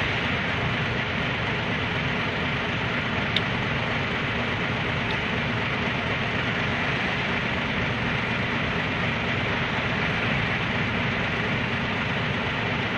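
Steady vehicle noise: an engine running with a constant hum of road and traffic noise. There is a faint click about three and a half seconds in.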